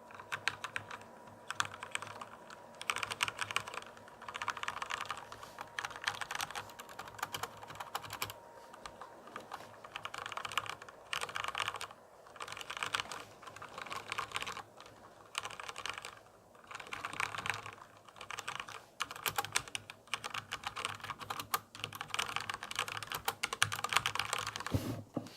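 Computer keyboard being typed on in quick bursts of keystrokes, with short pauses between the bursts; the typing stops just before the end.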